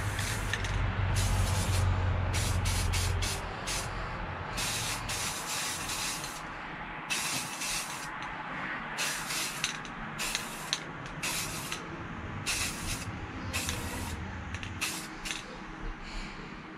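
Aerosol spray can of white paint hissing in short bursts, more than a dozen and each under a second, as a white base coat is sprayed onto a boiled deer skull. A low rumble runs underneath in two stretches.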